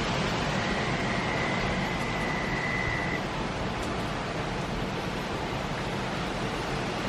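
Steady rush of hurricane wind and driving rain. About half a second in, a faint high steady whistle joins it for a couple of seconds.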